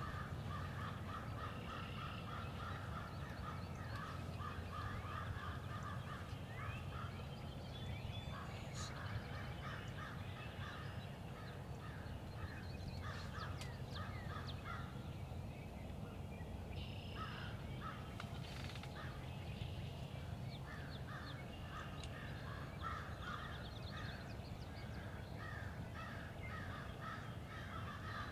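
Outdoor birds calling: a dense run of short, harsh calls repeated rapidly, easing briefly twice around the middle, over a low steady rumble.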